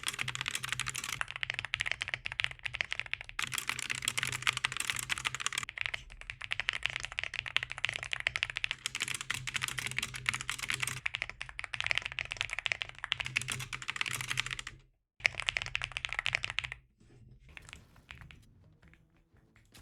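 Fast typing on a small plastic pre-built keyboard: a rapid, continuous clatter of keystrokes that stops briefly about fifteen seconds in, resumes, then thins to a few scattered keypresses near the end.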